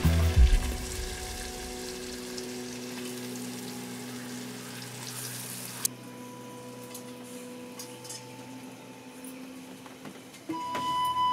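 Sliced red onions sizzling in hot oil in a wide metal pan. A flute tune comes in near the end.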